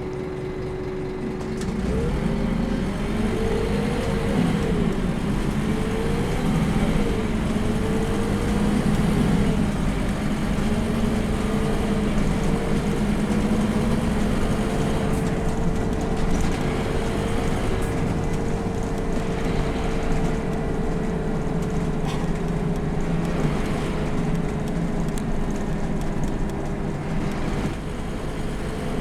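Scania K230UB city bus, with its 8.9-litre Scania DC9 diesel and ZF Ecomat automatic, heard from on board, pulling away. Its drivetrain whine climbs and drops back a few times as it accelerates through the gears, then settles into a steady cruise over a low engine rumble.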